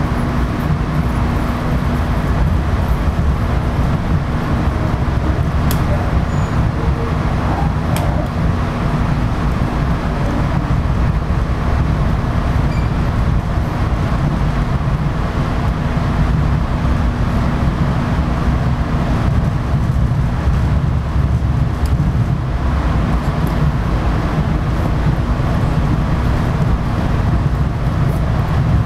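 MBTA commuter rail coach rolling along the tracks, heard from inside the car: a steady low rumble of wheels and running gear, with a few faint clicks. A steady hum in the first couple of seconds fades away.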